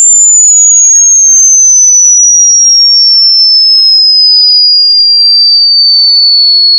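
A single loud, high-pitched electronic tone sliding slowly and steadily down in pitch, played as a dog-repellent sound. Fainter sweeping whistles cross it and die away in the first second or so.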